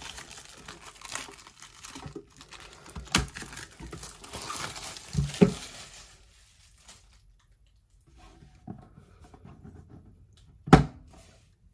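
Plastic shrink wrap crinkling and tearing as it is pulled off a metal collector's tin, with a few light knocks. After a quiet pause and some faint handling, there is one sharp clank near the end as the tin's lid is worked off.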